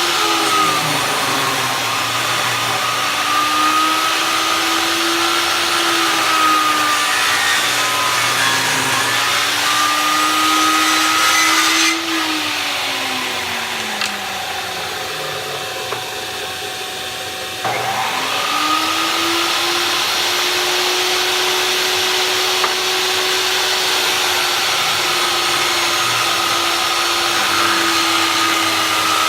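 Skilsaw worm drive table saw running and ripping 3/4-inch white oak boards. The motor's pitch sags as the blade takes the load and recovers without bogging down. About twelve seconds in the sound drops away sharply, and near eighteen seconds the motor spins back up with a rising whine.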